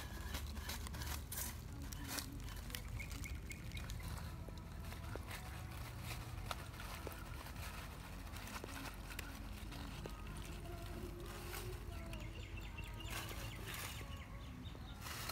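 Dry leaf litter rustling and crackling in irregular short clicks as hands work on the forest floor, over a low steady rumble, with faint short animal calls in the background.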